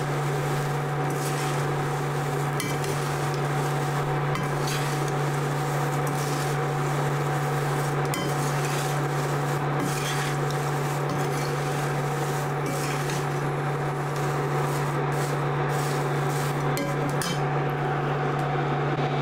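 A wooden spatula and a slotted metal spoon stirring and scraping dry fried poha flakes, nuts and curry leaves around a steel pan, with scattered light scrapes and taps. Under it runs a steady low hum.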